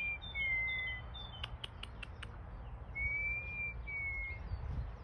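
A person whistling a two-note bird-calling whistle: a long clear note, then a slightly lower one. It is given at the start and again about three seconds in. Between the two calls, a quick run of five sharp clicks, with faint birdsong chirps behind.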